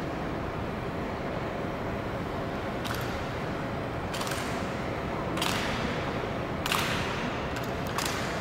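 Honor guards' M1 Garand rifle drill: sharp clacks and slaps of hands and metal on the rifles, roughly every second and a half from about three seconds in, each ringing briefly in a large stone hall over a steady hall hum.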